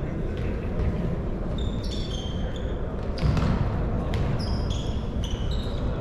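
Indoor football in a sports hall: sneakers squeak in short, high chirps on the court floor over a steady echoing din of play, with a few thuds of the ball, the loudest about three seconds in.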